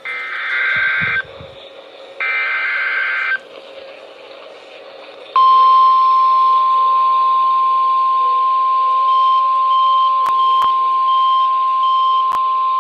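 Emergency Alert System header on NOAA Weather Radio. The last two of three short bursts of buzzing SAME data tones come first, about a second each. After a two-second pause the steady 1050 Hz weather-radio alert tone sounds, loud and unbroken, with a few faint clicks.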